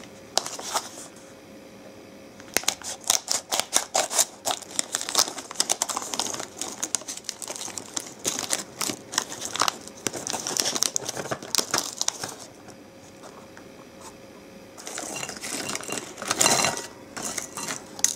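Crinkling and crackling of a shiny plastic snack pouch being handled and opened, in busy bursts with a quieter stretch of a couple of seconds before it starts again.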